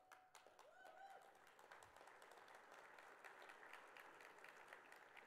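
Faint audience applause, many hands clapping, building after the first second and holding steady. A brief cheer comes near the start.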